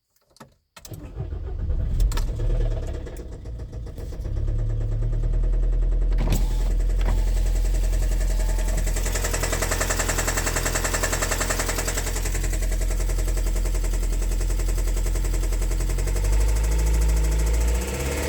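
Car engine starting about a second in, uneven at first, then running steadily, with a few sharp clicks during the first seven seconds.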